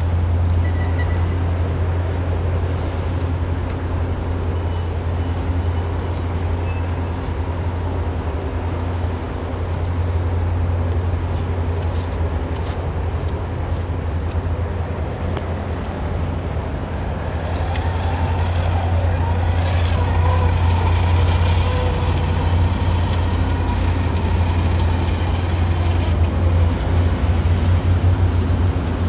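Steady low outdoor rumble, traffic-like, with a fainter higher hum swelling in for about ten seconds in the second half.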